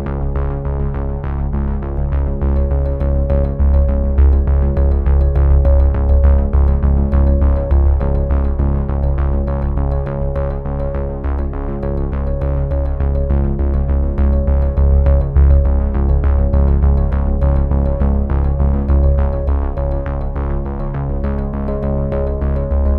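Background music: synthesizer and keyboard over a strong bass with a steady beat.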